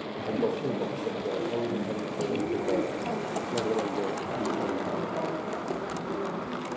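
Exhibition-hall background: indistinct chatter of many voices with a steady faint high whine and scattered light ticks.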